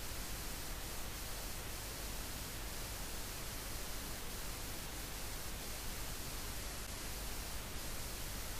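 Steady hiss of static noise, even and unchanging, with no other distinct sound standing out.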